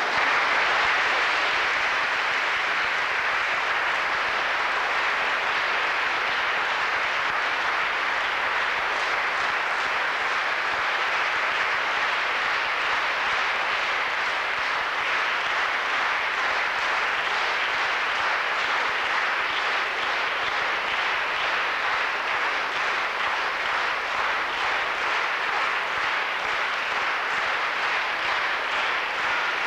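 Large concert audience applauding: dense, steady clapping that breaks out all at once and keeps up, with a faint regular beat coming through in the second half.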